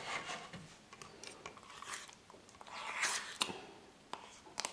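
Soft margarine being scooped from its tub and pushed off into a plastic mixing bowl: quiet squishing and scraping, with a few sharp clicks of the tub and bowl.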